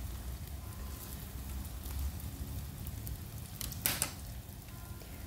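Tofu slices frying in shallow oil in a nonstick pan, a steady soft sizzle. One short sharp clack a little before four seconds in.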